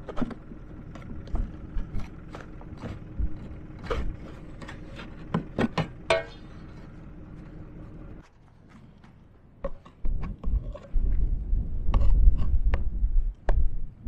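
Scraping and knocking as packed wet snow is dug out of a jammed snowblower chute: a string of separate sharp knocks and scrapes over a steady hum. About 8 s in the sound cuts off, and wind then rumbles on the microphone with dull thumps, loudest near the end.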